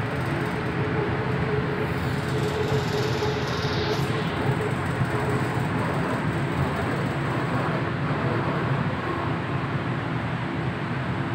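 Jaipur Metro train running along an elevated track, heard from inside the carriage: a steady rumble of wheels and motors with a low hum. A high whine rises and stops about four seconds in.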